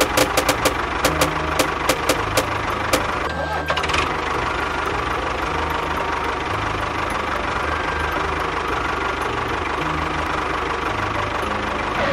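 Small engine running steadily with a rapid knocking beat, with a series of sharp clicks over the first three seconds.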